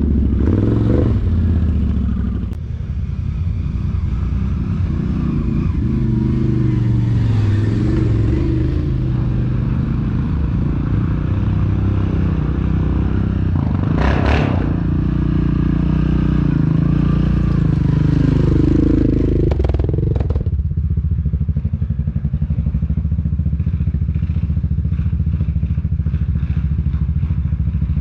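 ATV engine running on a trail ride, its pitch rising and falling with the throttle, then settling into a steadier low drone about twenty seconds in. A short noisy burst, a clatter or crash, cuts through about fourteen seconds in.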